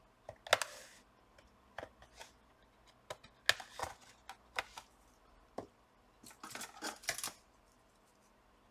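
Plastic bottom cover of a Dell Inspiron 5570 laptop being pried open with a thin metal opening tool: irregular scraping along the seam and sharp clicks as the case clips let go, the loudest about three and a half seconds in and a quick run of them near the end.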